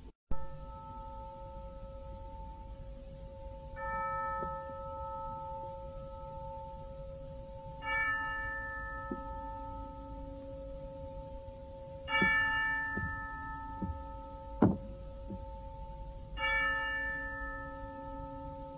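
Slow orchestral music: a tubular bell struck four times, about every four seconds, each stroke ringing on and fading over a held, steady tone. A few dull thuds come in the second half, one of them sharp and the loudest sound here.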